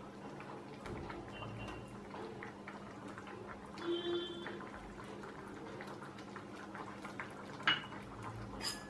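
Thick soya-chunk curry simmering in a kadai on the gas flame: faint, steady bubbling with many small pops, over a steady low hum. A couple of sharp light clicks come near the end.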